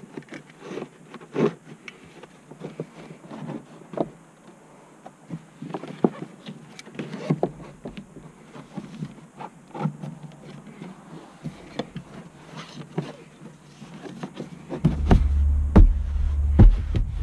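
Irregular clicks, knocks and rustles of hands and a tool working at a car's interior trim and carpet. A louder low rumble sets in near the end.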